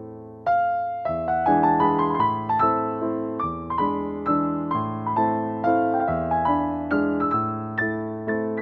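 Background piano music: a flowing melody of struck notes, two or three a second, over sustained chords, with a fresh phrase starting about half a second in.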